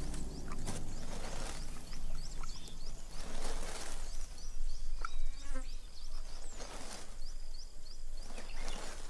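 Monitor lizard's claws scraping and digging in loose, dry sandy soil in irregular bursts, over insects chirping with short, high, rapidly repeated calls.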